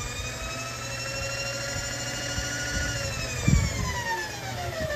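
Milling machine table feed motor whining at a steady pitch as the table travels, then winding down and falling in pitch over the last couple of seconds, with a low thump about three and a half seconds in.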